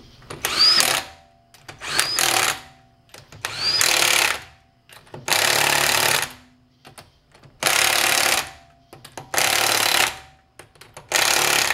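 Impact wrench hammering car wheel lug nuts tight in about seven separate bursts, each half a second to a second long. The first few bursts start with a brief rising whine as the tool spins up.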